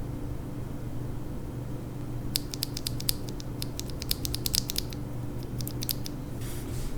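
Quick, irregular small plastic clicks from a loose mechanical keyboard switch, the Attack Shark K86's stock switch, being handled and pressed. The clicks start about two seconds in and stop around six seconds, over a steady low hum.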